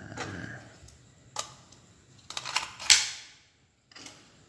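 Plastic spring airsoft pistol being handled: a rustle, a single sharp click, then a quick run of clicks that ends in a loud sharp snap about three seconds in.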